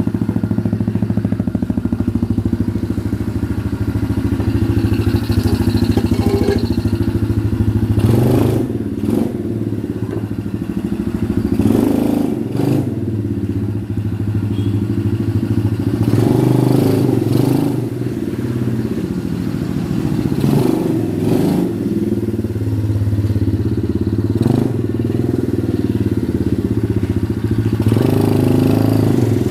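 Lenka MXGP 20 mini trail bike's 110cc four-stroke automatic engine running at idle, with the throttle blipped several times so the revs rise and fall back.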